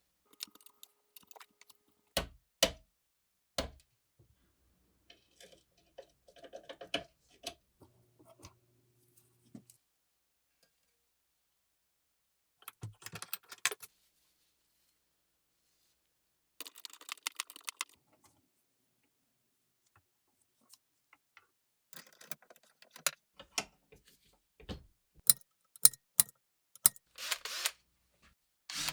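Irregular clicks, knocks and short scrapes of hand tools and metal parts being handled on a workbench, with quiet gaps between. A quick run of sharp knocks comes near the end.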